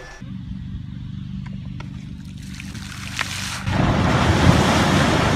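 A low rumble, then about three and a half seconds in a loud rush of water splashing as something thrashes through shallow lake water.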